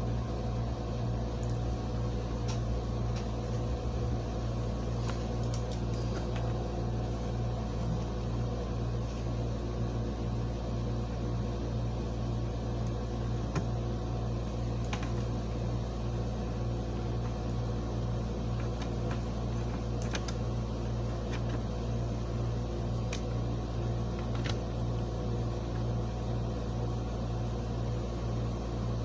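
Steady electrical hum with a fan-like whir, with a few faint clicks and taps as model buildings and locomotives are handled on the track.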